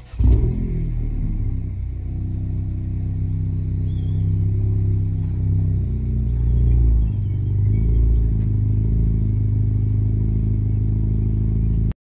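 2022 Honda Civic Si's 1.5-litre turbocharged four-cylinder engine idling steadily, swelling slightly around seven to eight seconds in.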